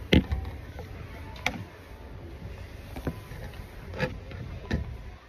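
Handling knocks and clicks as a black insulated tumbler is taken off a store shelf and moved about in the hand. There are five short knocks, the first and loudest just after the start, then four more spaced about a second apart, over a steady low store hum.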